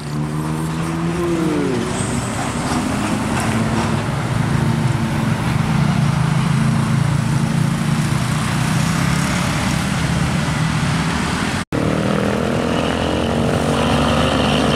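Heavy diesel truck engines running as trucks pass, a steady low drone mixed with road traffic. About two-thirds through, the sound cuts out for an instant and resumes with another truck's engine rising steadily in pitch as it gathers revs.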